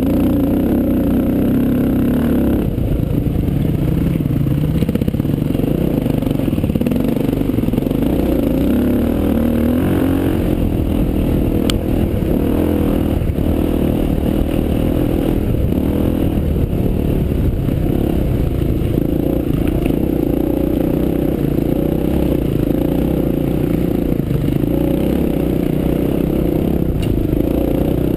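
Honda XR400 trail bike's single-cylinder four-stroke engine running under load, its revs rising and falling as it rides over stony ground, with clatter and knocks from the bike and stones.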